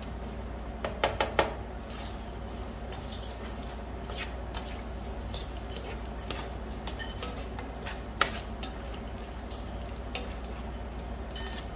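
Plastic slotted spoon stirring onion, garlic, ginger and tomato through oil and butter in a nonstick pan, with light scattered scraping taps. A quick run of three or four knocks of the spoon on the pan comes about a second in, and one sharper knock about eight seconds in.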